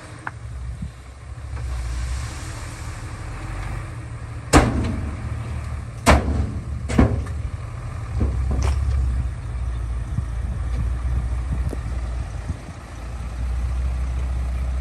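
Heavy construction machinery: a diesel engine running with a steady low rumble, broken by three loud, sharp clangs about four and a half, six and seven seconds in, and a couple of fainter knocks soon after.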